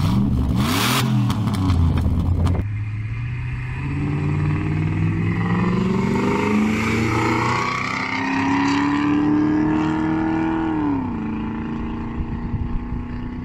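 V8 engines of a modified 5.2 L Jeep Grand Cherokee ZJ and another car at full throttle in a drag race. After a couple of seconds of revving with a sharp loud burst, the engine note climbs steadily in pitch as they accelerate. About eleven seconds in it drops quickly and then holds steady as the cars pass and pull away.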